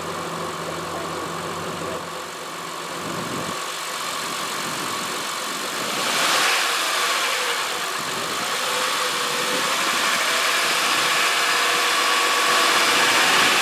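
Car engine running under the open hood, brought up from idle to a fast idle of about 2,000 RPM and held there to put the battery and charging system under load for a battery load test. The engine sound swells about six seconds in and keeps growing slowly louder.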